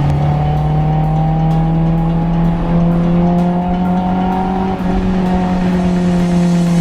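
Honda S2000's four-cylinder engine pulling steadily under acceleration, its pitch climbing slowly with a brief dip about five seconds in, heard from the open cockpit with wind and road rumble underneath.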